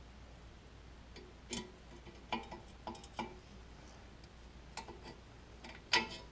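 Faint, irregular small metal clicks and taps as the parking-brake shoe's hold-down pin and its guide wire are worked through a C3 Corvette's rear brake backing plate. About nine separate ticks come with uneven gaps, the sharpest near the end.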